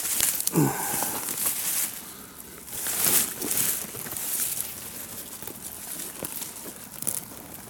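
Rustling and crunching of dry leaves and undergrowth in irregular bursts, loudest in the first half and dying down after about four and a half seconds.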